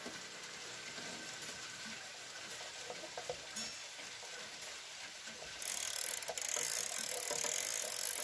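Vienna three-weight wall clock ticking faintly, then about five and a half seconds in the key starts cranking a weight up: a steady ratcheting rattle from the winding drum's click and pawl.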